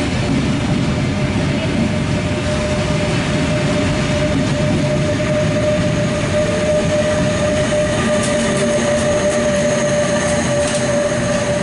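Bombardier double-deck Intercity 2 coaches rolling past along a station platform: a steady rumble with a sustained high tone over it throughout, and light rattling in the second half.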